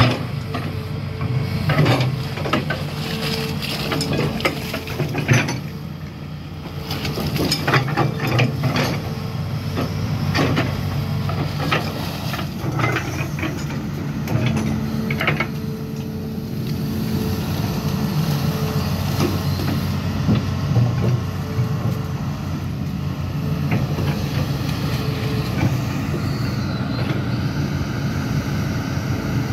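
Hitachi Zaxis 210F amphibious excavator's diesel engine running steadily under load while it digs. Repeated knocks and clanks of the bucket working the mud come thickly in the first half and more sparsely later.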